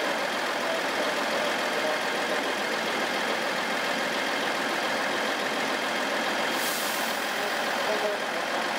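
Steady running noise of a train standing at a station platform with its engine or equipment idling. A short high hiss comes about seven seconds in.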